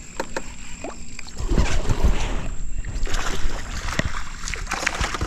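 Scattered knocks and clatter of things being handled in a jon boat, with a louder low rumble of movement about a second and a half in.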